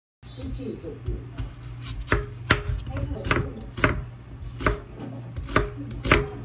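Knife slicing an onion on a wooden cutting board: about seven sharp taps of the blade on the board, starting about two seconds in and coming every half second to a second, over a low steady hum.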